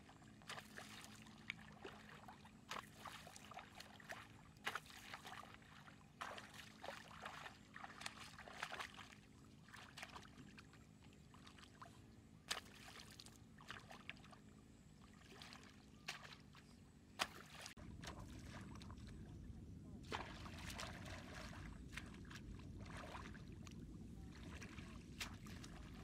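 A wooden pole slapping and churning shallow muddy water in irregular splashing strokes. About two-thirds of the way through, the splashing gives way to a steady low rushing noise.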